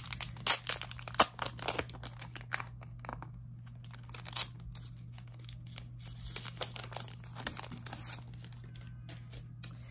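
Packaging for an album film card being torn open and crinkled by hand: a dense run of sharp crackles for the first couple of seconds, then scattered rustles and a few louder crinkles.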